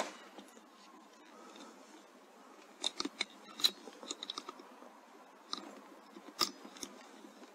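Handling of an air rifle after a shot: sharp metallic clicks and clacks in a few small clusters, about three, four, five and a half and six and a half seconds in, over a low hiss.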